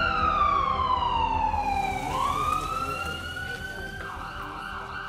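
Ambulance siren in a slow wail: one long falling glide over about two seconds, then rising again, growing fainter as the vehicle moves away.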